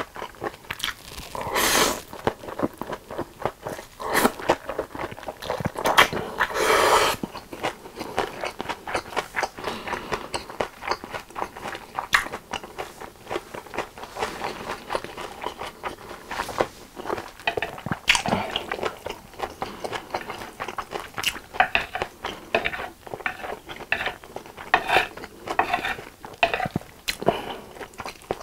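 Close-miked eating of japchae, Korean glass noodles stir-fried with vegetables: a few louder slurps of noodles in the first seven seconds, then steady wet chewing with many sharp mouth clicks and smacks.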